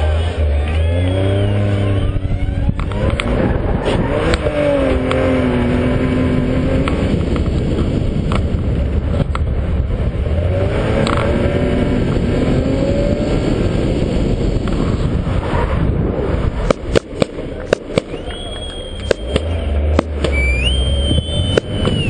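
Autocross race car's engine revving hard and falling back as it shifts and corners, heard on board over loud tyre and road noise. In the last few seconds there is a scatter of sharp knocks and clicks and short high squeals.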